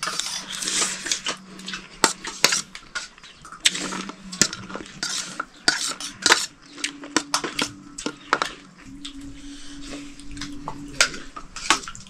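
Metal utensils and dishes clinking and scraping, many irregular short clanks in quick succession, over a faint steady low hum.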